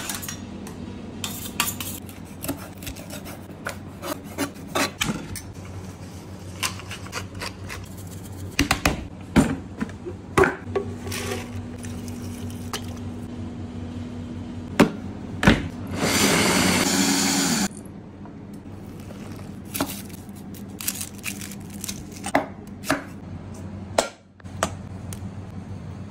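Kitchen food-prep sounds: knocks, clinks and scrapes of a knife and utensils on a wooden cutting board and steel bowls, over a steady low hum. About two-thirds of the way through, a blender runs for under two seconds.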